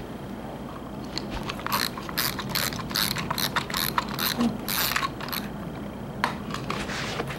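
Dry treats rattling inside a hard plastic treat ball handled by a person: a run of quick rattles, two or three a second, for about three seconds, then a couple more near the end.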